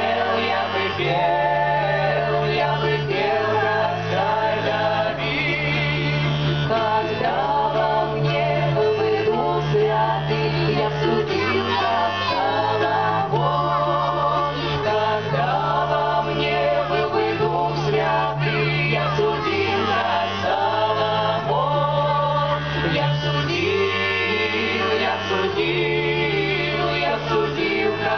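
Folk ensemble of mixed voices singing a 17th-century Russian sacred kant in close part-harmony, with accordion chords sustained underneath.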